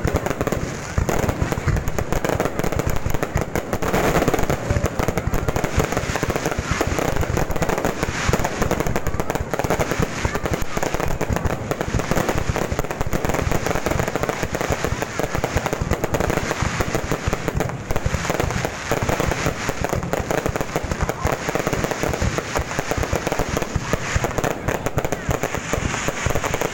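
Fireworks going off continuously: a dense, unbroken run of rapid crackling pops at a steady loud level.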